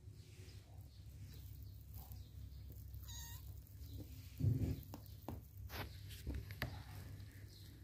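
Young kittens playing: one short, high-pitched kitten mew about three seconds in, then a dull thump and light scuffling and rustling of paws on bedding.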